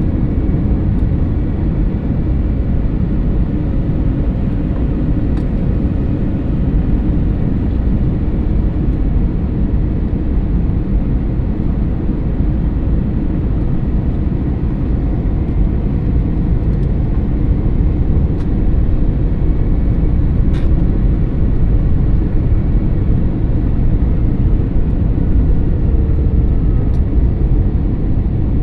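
Airbus A321neo LR airliner during its landing at Schiphol: a steady, deep rumble of engine and airflow noise, growing slightly louder in the second half, with a few faint clicks.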